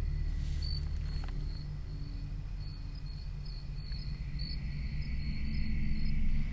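Crickets chirping in a steady pulsing pattern over a low, continuous rumble that swells a little near the end.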